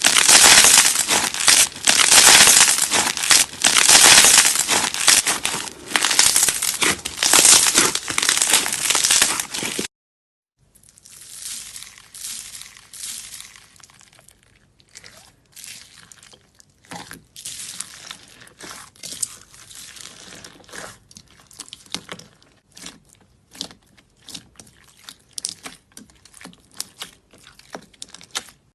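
Slime being worked by hand: a loud, dense stream of crackles for about the first ten seconds. After a brief break, a quieter run of scattered clicks and pops follows.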